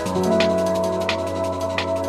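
Drum and bass music: held synth chords over a deep bass, with a sharp drum hit about every three quarters of a second. The chord and bass change right at the start.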